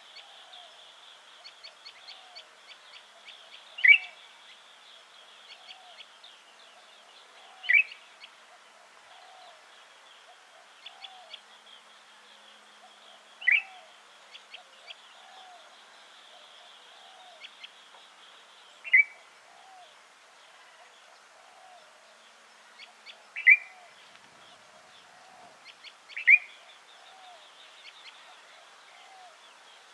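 White-eared bulbul giving short, sharp calls, six times a few seconds apart. Faint continuous chirping and a soft low note repeating about once a second sit under them.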